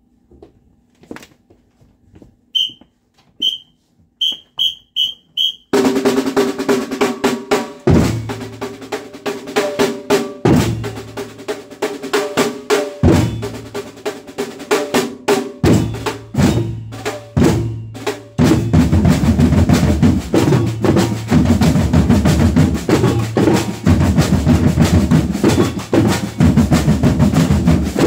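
Samba band of surdo bass drums and snare drums, counted in by a series of short whistle blasts with a few stray drum strokes. From about six seconds the whole band plays a stop-start break, loud drumming broken by short gaps, then a little past halfway it settles into the main groove, dense and continuous.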